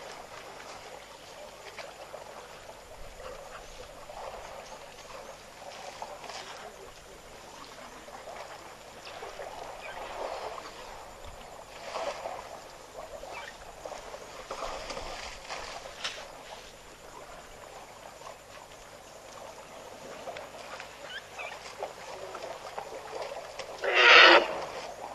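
African elephants moving through waterhole mud and water, with scattered faint splashing and squelching sounds. Near the end comes one brief, loud blast from the elephants, much louder than the rest.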